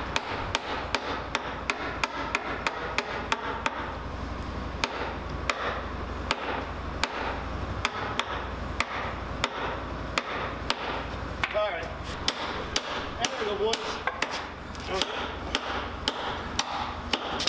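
A hand hammer striking the steel track links and connectors of a Sherman tank's track in a steady run of sharp metallic blows, about two to three a second.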